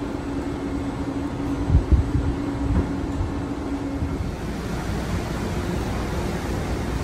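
Wind buffeting the microphone over a steady machine hum, which cuts off about four seconds in. A steady wash of wind and churning water follows.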